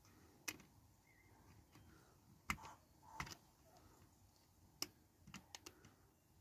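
Short, faint clicks and taps as a tailboard is worked by hand into the rear of a die-cast Dinky Toys lorry model, about seven in all, several close together near the end.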